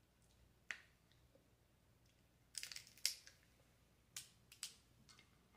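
Snow crab leg shell cracking and snapping as it is broken open by hand: a single sharp crack, a quick cluster of crackles, then a few more snaps.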